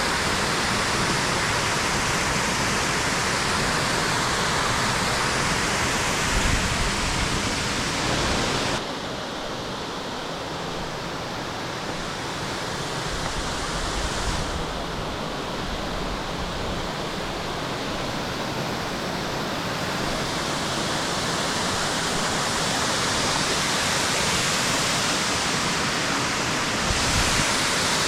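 Steady rushing water of a waterfall. About nine seconds in it turns somewhat quieter and duller, then slowly swells back to full strength near the end.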